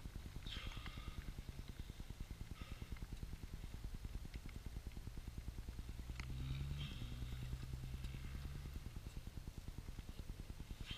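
Motocross bike engine idling with a steady low putter, running a little louder for a few seconds about six seconds in.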